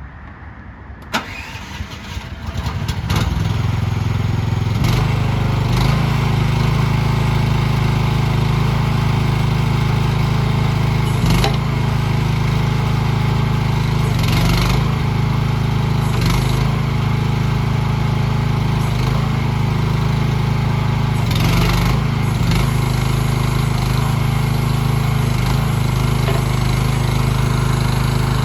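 A mini excavator's engine is started about a second in, catches and builds up over the next two seconds, then runs steadily. A few short clatters sound over the engine.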